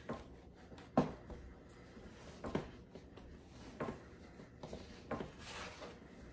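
Yeast bread dough being kneaded by hand on a floured wooden counter: a soft thump every second or so as the dough is pushed and folded against the board, the loudest about a second in, with rubbing of hands and dough between.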